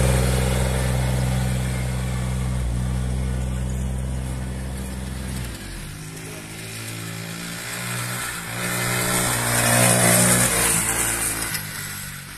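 Kubota G23-II ride-on mower's three-cylinder diesel engine running steadily for the first half. About halfway in it gives way to the smaller engine of a 50cc quad, which revs up, is loudest a few seconds later and fades near the end.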